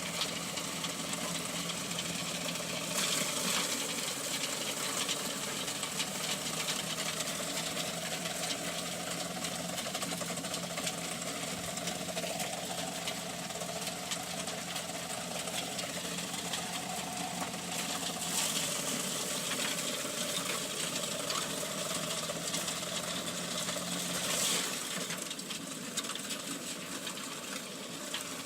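A motor-driven machine running steadily, a hum with fast rapid ticking; the hum drops away about 24 seconds in.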